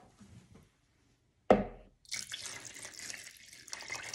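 A sharp knock about a second and a half in, then chicken broth pouring steadily from a glass measuring cup into a mixing bowl of cream of chicken soup.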